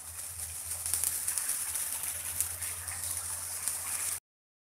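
Thick coconut-milk prawn curry simmering in a frying pan: a steady crackling sizzle. It cuts off abruptly about four seconds in.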